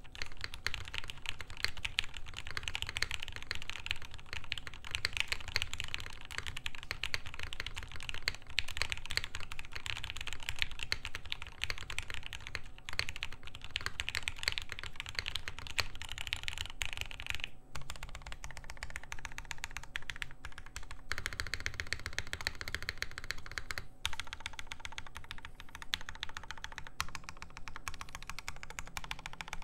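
Continuous fast typing on an FBTKL mechanical keyboard with Gateron Ink linear switches on a flexible POM plate, top mount, soldered PCB and force-break mod, giving a rather quiet keystroke clack.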